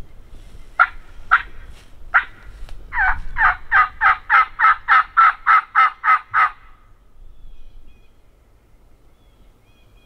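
Turkey hunter blowing a hand-held call to strike up a gobble: a few single notes, then a fast, even run of about a dozen loud notes, about four a second, that stops about halfway through.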